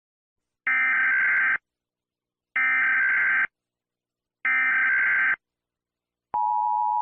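Emergency Alert System SAME header: three short bursts of data tones, each just under a second, then about six seconds in the steady two-tone EAS attention signal begins.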